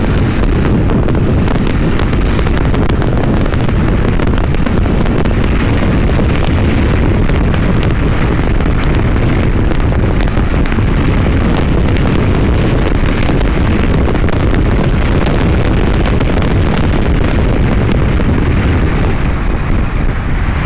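Steady wind rush and buffeting on the microphone of a motorcycle ridden at speed: a Triumph Bonneville Bobber being opened up, its 1200 cc parallel-twin engine running underneath the wind noise.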